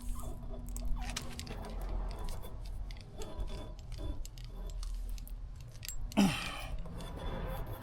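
Small clicks, taps and rattles of hand tools being worked, as with a tyre plug repair kit, with a person's short exhale of effort about six seconds in.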